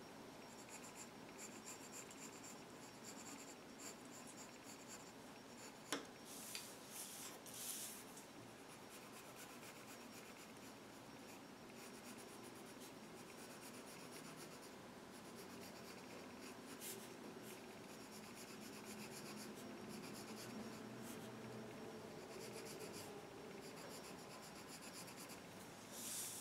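Colored pencil scratching faintly across paper in short repeated strokes as petals are sketched, with a sharp click about six seconds in and a few louder scratches just after it and near the end.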